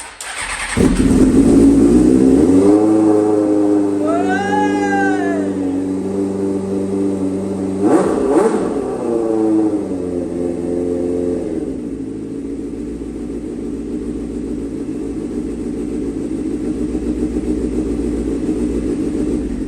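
Motorcycle engine catching about a second in after a starter fix, held at raised revs with blips of the throttle around four and eight seconds, then settling to a steady idle about twelve seconds in. The exhaust is spitting out water that has collected in it.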